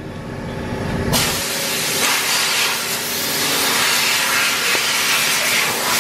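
Compressed air hissing out in a loud steady rush that starts suddenly about a second in.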